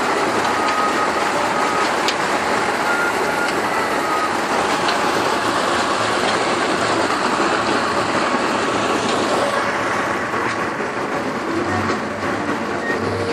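Tube well irrigation running: a loud, steady rushing noise.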